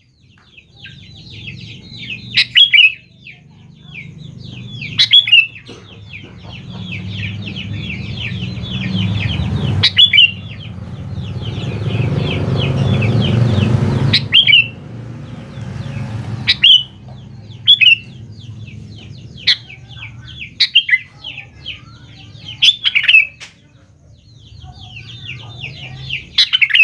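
Sooty-headed bulbul calling: fast chattering runs of chirps, broken every couple of seconds by a loud, sharp call. A low rumble swells under the birdsong in the middle and dies away.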